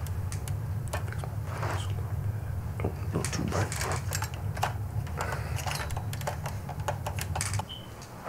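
Irregular clicking and tapping of typing on a computer keyboard, over a steady low hum that drops away near the end.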